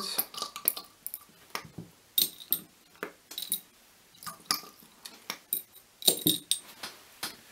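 Scattered light clinks and taps of small laboratory glassware, a dozen or so irregular ticks, some ringing briefly, as a plastic dropper pipette is worked against a graduated cylinder and a small glass flask.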